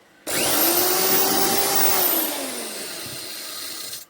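Small electric blower, a hair dryer used to dry fresh paint, switched on with a rising whine as the motor spins up. It runs loud for about two seconds, then drops to a lower, quieter setting with a falling pitch, and cuts off at the end.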